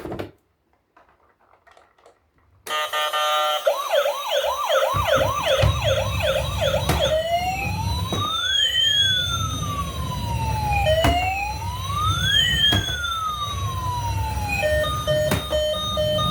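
Toy emergency vehicle's electronic siren switching on abruptly: a fast yelping warble, then a slow rising-and-falling two-tone wail, then a run of short steady beeping notes near the end. A low rumble runs underneath from about five seconds in, with a few clicks.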